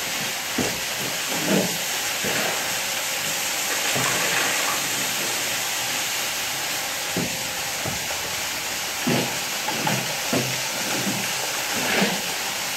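Walk-behind power trowel running over freshly placed terrazzo: a steady hiss, with a few short low knocks scattered through.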